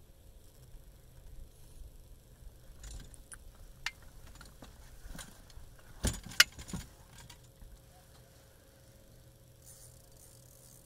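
Scattered sharp clicks and knocks of fishing gear being handled on a small boat, the loudest a quick cluster about six seconds in, over a faint steady hum.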